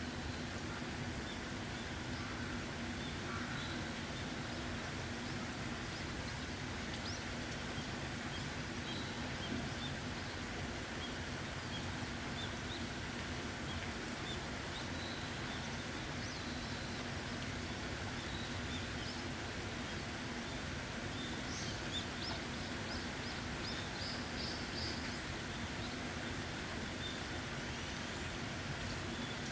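Steady rain falling, with small birds chirping faintly over it. Short high chirps come scattered throughout, and a quick run of short high notes sounds in the last third.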